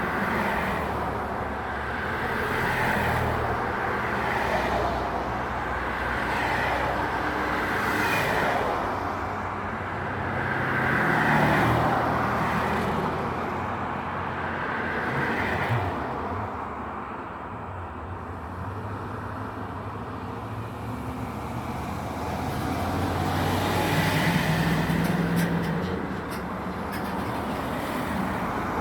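Road traffic: cars and trucks passing one after another, each rising and fading over a few seconds, with an engine running steadily beneath.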